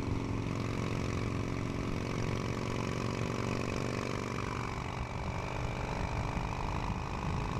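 Electric drill running steadily while drilling out a steel fork stop. Its pitch drops about halfway through, then it runs on at a steady higher tone.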